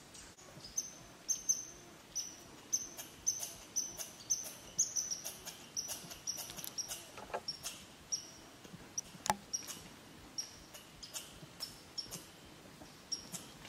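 A small animal's high, short chirps repeating irregularly, two or three a second, with two sharp snaps near the middle, the second the loudest.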